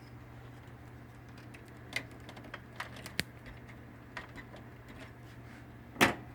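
Scattered light clicks and taps of plastic printer parts and wire connectors being handled, over a steady low hum, with a louder clatter near the end.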